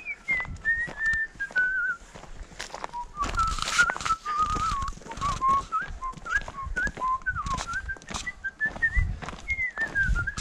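A person whistling a wandering tune, one clear note line stepping up and down, over the irregular sound of footsteps along the trail.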